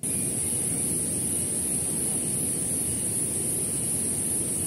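Steady rushing of a flowing river, with a continuous high-pitched hiss laid over it; the sound cuts in abruptly at the start.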